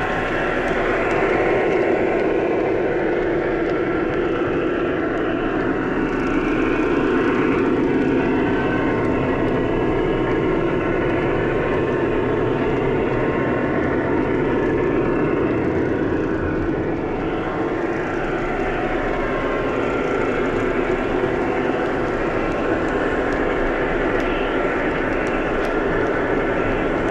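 O scale model train running steadily around the track loop: a continuous whirring rumble of wheels on rail and motors, with faint pitch glides above it.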